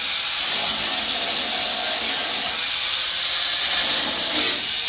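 Handheld angle grinder grinding down a rough weld seam on a car's steel body panel: a steady, high grinding hiss of the disc on metal. It swells and eases several times as the disc is pressed on and let off, smoothing the weld for painting.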